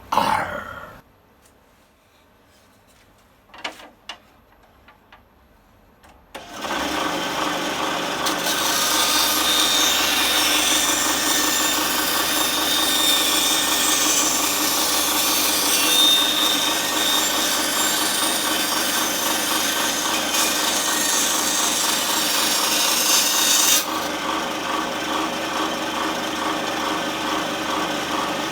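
Small Aldi Workzone bandsaw switched on about six seconds in after a couple of clicks, its motor running with a steady hum. It cuts through a piece of wood with a loud hiss of the blade for about sixteen seconds, then runs on freely once the cut is through, a little louder than is wanted.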